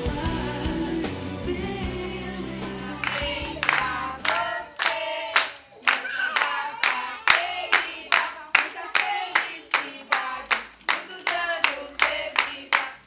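Background music with a bass line stops about three seconds in; then a group of young children sing together while clapping in a steady beat, about two claps a second.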